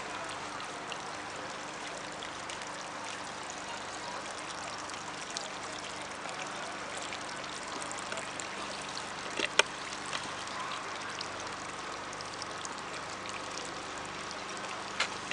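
Steady trickle of flowing water, with a sharp click about nine and a half seconds in and another near the end.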